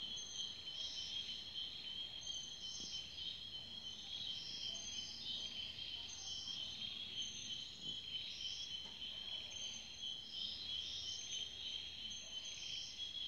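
Night insects calling: a steady high trill, with shorter, higher chirps repeating about once a second over it.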